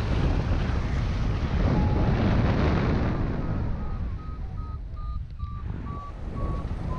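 Airflow buffeting the camera microphone on a paraglider in flight, a steady rushing. In the second half a flight variometer beeps in short even pips, about two a second, its pitch easing slowly down: the instrument signalling that the glider is climbing in lift.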